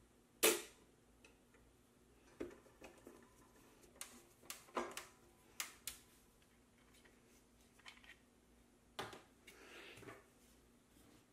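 Irregular clicks and light knocks of hands fitting wire fan guards onto plastic-framed cooling fans and handling hard plastic parts on a tabletop. The sharpest knock comes about half a second in, with a brief rustle near the end.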